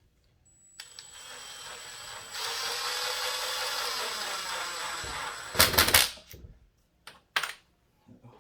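Cordless power screw gun driving a screw into a window frame to mount a blind bracket. The motor runs for about five seconds and gets louder about two seconds in. It ends in a short, loud burst of rattling as the screw seats, followed by a couple of clicks.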